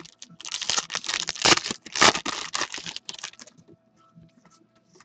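Foil wrapper of a hockey card pack being torn open and crinkled in the hands: a dense run of rapid crinkles that stops about three and a half seconds in, followed by a few faint ticks.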